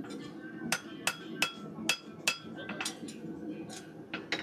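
A farrier's hand hammer strikes a steel horseshoe on an anvil while shaping it. Five loud, ringing blows come about every half second, followed by a few lighter taps.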